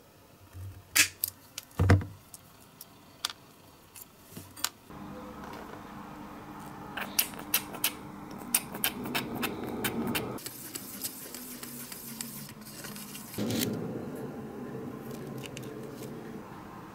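Workbench handling sounds: sharp clicks and taps of small metal parts and tools. Then, over a steady background hum, quicker clicks and scraping from a plastic cup and syringe as epoxy resin is mixed.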